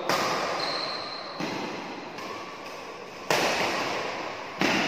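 Badminton rackets striking the shuttlecock back and forth in a rally: about five sharp smacks roughly a second apart, each echoing in the large hall.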